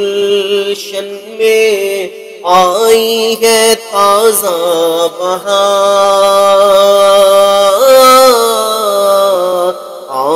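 Naat sung over a steady hummed drone. From about two seconds in, a solo voice sings a long, drawn-out melismatic phrase with long held notes and a slide near the end.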